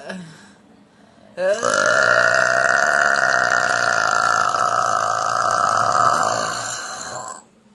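A woman's long, loud burp. It starts about a second and a half in, holds a steady pitch for about six seconds, then fades and stops. The tail of an earlier burp fades out at the very start.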